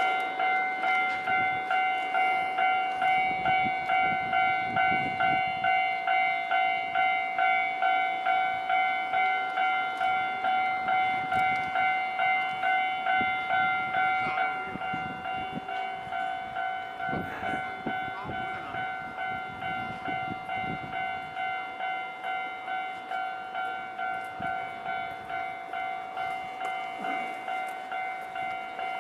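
Japanese railway level-crossing warning bell ringing in a fast, even ding-ding rhythm. It gets quieter about halfway through. A train's rumble comes and goes underneath.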